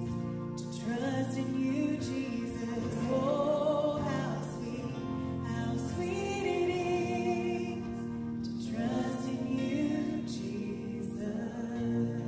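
Live worship band playing: singers holding long sung lines over acoustic guitar, bass, keys and drums, with cymbal strikes now and then.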